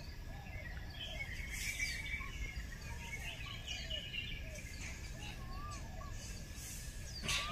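Faint scattered bird chirps and short whistles over a steady low rumble, the distant rumbling of a Mount Merapi lava avalanche, with a thin steady high tone.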